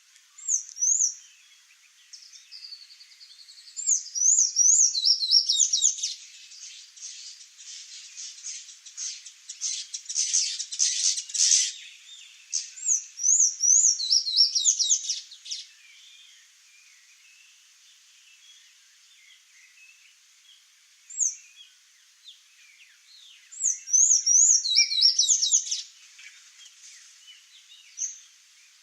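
Sayaca tanager calling and singing in high, squeaky bursts of quick up-and-down notes, several phrases separated by pauses, with a denser run of twittering in the first half.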